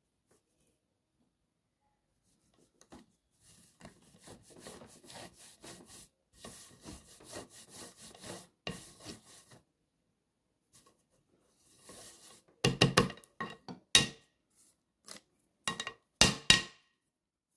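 A floured block of butter scraped back and forth across a flat metal grater: a run of quick rasping strokes, then after a pause a few much louder knocks and scrapes of the grater on the plate.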